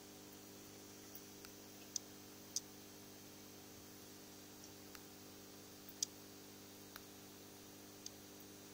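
Quiet room tone: a faint steady hum with a scattering of small, sharp ticks, the loudest about two, two and a half, and six seconds in.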